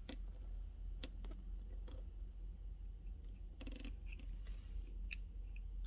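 Faint clicks and taps, a few scattered about a second apart, over a low steady hum: the sound of a carded die-cast toy car and its packaging being handled.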